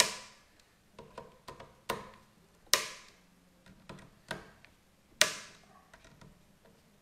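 Clicking torque driver, set to 25 inch-pounds, breaking over on the scope base screws: a few sharp clicks a second or two apart with lighter ticks between. Each click signals that the screw has reached the set torque.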